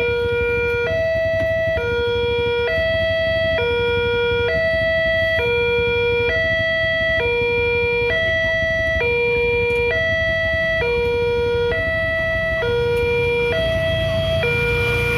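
Railway level-crossing warning alarm sounding continuously, a lower and a higher electronic tone alternating, each held just under a second. A low rumble of waiting motorcycles and cars runs beneath it.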